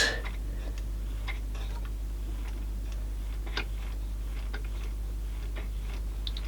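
Faint, irregular clicks and ticks from a Yamaha CDC-755 CD player's Sanyo laser pickup and disc mechanism as it tries to read a disc, over a steady low hum.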